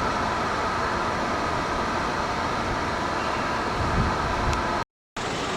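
Steady noise of city traffic, even and unbroken, cutting out completely for a moment near the end.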